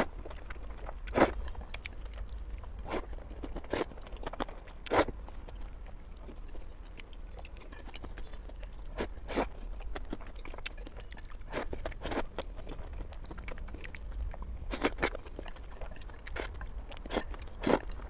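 Close-miked eating of wide flat noodles in chili oil: slurping and chewing, with short, sharp wet smacks and sucks every one to three seconds, some louder than others.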